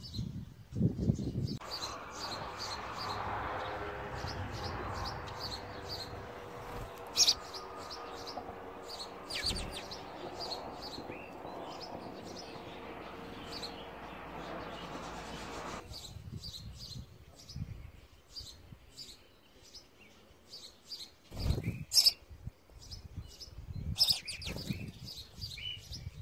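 House sparrows chirping: short high chirps repeated about two or three times a second, over a steady background noise during the first half, with a couple of low thumps near the end.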